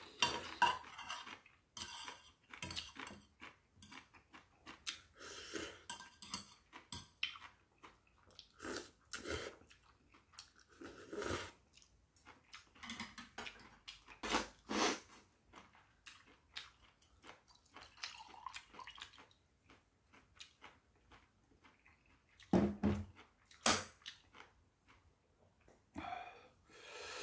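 Metal chopsticks clinking and scraping in a metal bowl of ramyeon, in short irregular bursts, with chewing between.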